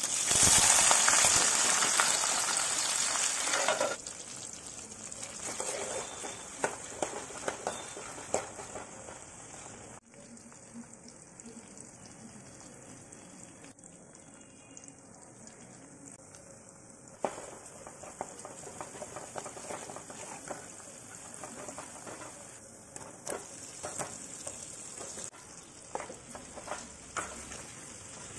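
Sliced onions dropped into hot oil in an aluminium kadai, hissing loudly for about four seconds, then settling into a steady, quieter frying sizzle. Scattered clicks and scrapes of a metal spoon stirring in the pan.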